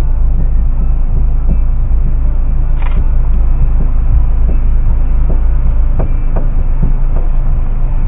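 Steady low rumble of a parked car's idling engine heard from inside the cabin, with scattered faint clicks.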